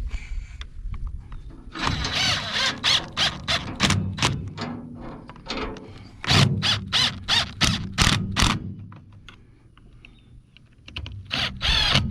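Bolts being screwed down by hand to fasten a chainsaw's air filter housing to the carburettor: runs of short squeaky tool strokes, about three or four a second, in two main bursts with a pause between.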